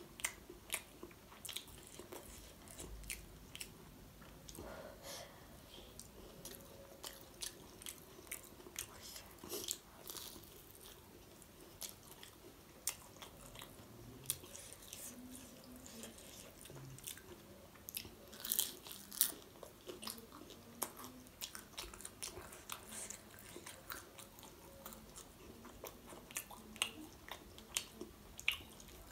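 Close-miked biting and chewing of fried momos: the crisp fried wrapper crunches in sharp, irregular clicks, with the loudest crunches about two-thirds of the way in.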